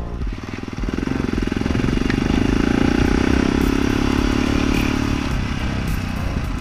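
Yamaha Ténéré XT660's single-cylinder four-stroke engine accelerating away from a stop, growing louder about a second in and easing off about five seconds in.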